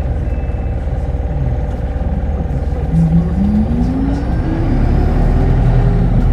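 A Hino Blue Ribbon Hybrid city bus's drivetrain heard from inside the cabin: a low, evenly pulsing rumble, then from about halfway through a rising whine as the bus accelerates away.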